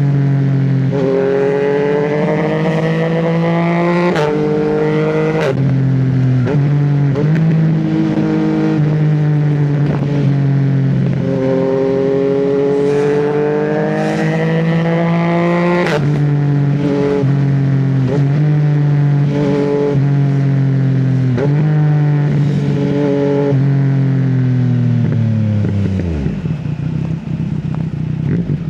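Yamaha MT-09 three-cylinder engine pulling hard through the gears. Its pitch climbs in several long rises, each broken off sharply by a quickshifter upshift. Later it steps down through lower revs and falls to idle near the end.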